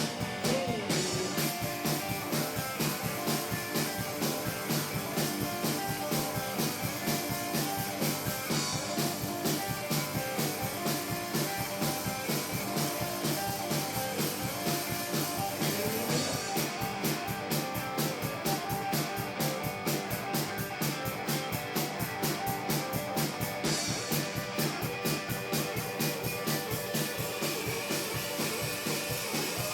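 Blues-rock band music: guitar over a steady drum beat.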